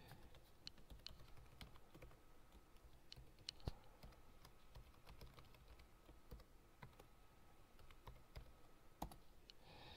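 Faint typing on a computer keyboard: irregular key clicks scattered throughout.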